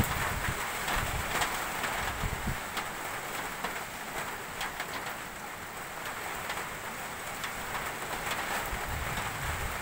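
Steady typhoon rain pattering on a corrugated metal roof overhead, with many fine drop ticks. Low wind rumble buffets the microphone at the start and again near the end.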